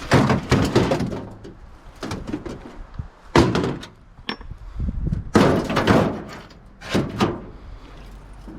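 Scrap microwave being handled and worked apart: a series of metal clunks and knocks, the loudest about three and a half and five and a half seconds in.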